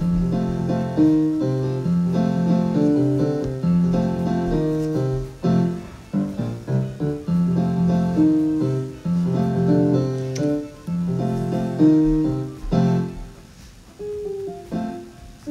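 Instrumental background music led by piano, playing a repeating melodic phrase that grows softer near the end.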